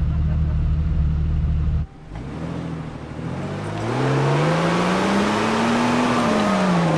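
A vehicle engine running steadily under load, then cut off by an edit; an engine then revs up, its pitch climbing for several seconds and easing off near the end, over a loud hiss of tyres throwing dirt as the stuck pickup is pulled out.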